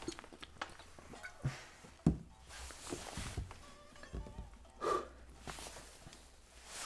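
A man drinking from a glass beer bottle, with scattered knocks of the bottle being handled; the loudest is a sharp knock about two seconds in. A brief vocal sound comes about five seconds in.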